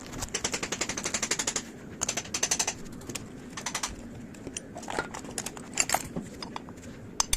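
Quick runs of sharp mechanical clicks, roughly a dozen a second: a long run at the start, a shorter one about two seconds in, another near four seconds, then scattered single clicks. It sounds like hand-tool work, such as a ratchet being worked.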